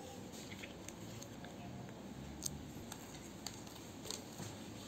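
Faint scattered clicks and taps of hands handling a plastic juicer motor housing, over low background noise.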